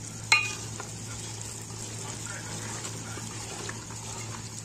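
Metal ladle stirring mutton stew in a metal pot while the contents sizzle steadily. One sharp clink of ladle against pot, which rings briefly, comes about a third of a second in, with a few lighter scrapes after.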